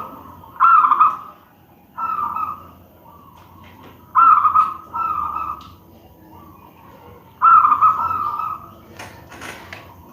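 Zebra dove (perkutut) cooing: about six repeated coo phrases, each starting loud and sliding into a held note, several of them a strong phrase followed closely by a softer one. A few faint clicks come near the end.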